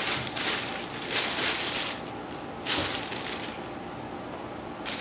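Thin plastic carrier bag rustling and crinkling as a cardboard takeout box is pulled out of it, loudest in the first couple of seconds with another rustle near the middle.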